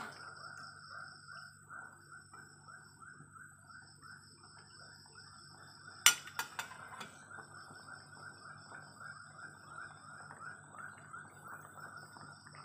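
Jengkol stew in a thick coconut-milk gravy simmering in an aluminium wok: faint, quick, even bubbling and plopping, with one sharp clack about six seconds in.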